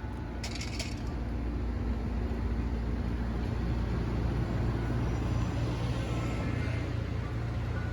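Steady low rumble of a vehicle in motion, with a brief high hiss about half a second in.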